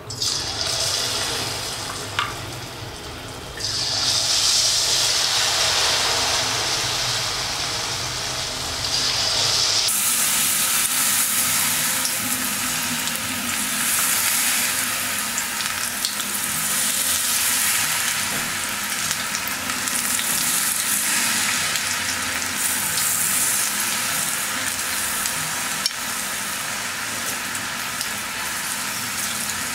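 Batter-coated cauliflower pieces deep-frying in hot oil in a kadai: a steady, loud sizzle that starts as the first pieces go in and grows louder a few seconds later as more are added, then keeps on with slow swells.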